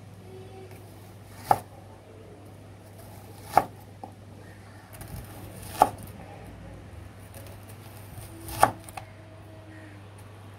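Chef's knife slicing through a red onion and knocking onto a wooden cutting board: four sharp knocks, one every two to three seconds.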